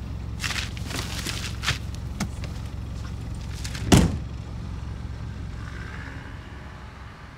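A car running steadily, with a few light clicks and knocks, then a car door shutting with a heavy thud about four seconds in. After the thud the car sound slowly grows fainter.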